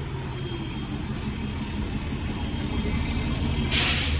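Fire truck engine rumbling steadily and growing louder as it draws near, with a short, loud hiss near the end.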